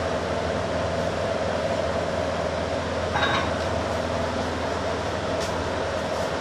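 A steady machine hum with a constant drone, and a brief scrape or rustle about three seconds in.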